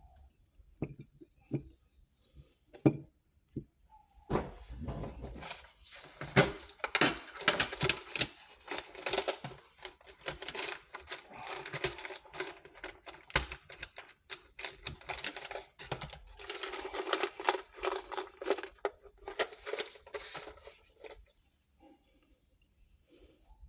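Motorbike electric horn being adjusted: after a few separate clicks, it sputters in a rapid, irregular crackling buzz that comes and goes from about four seconds in until about twenty-one seconds.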